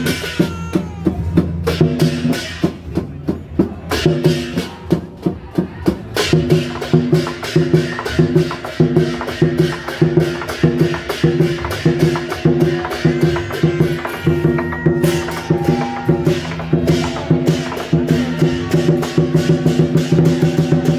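Temple procession band music: drums and cymbals struck in a quick, steady beat under a held, pitched melody line.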